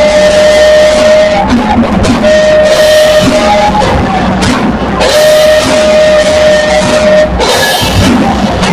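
Loud live worship music in a rock style, with drum kit and electric guitar and long held notes over them, three held notes each lasting a second or two.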